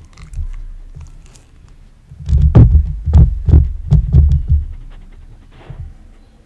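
Samoyed sniffing a yellow bell pepper right at the microphone: a run of quick sniffs, about three a second, heard as low thumps, with a softer thump shortly before.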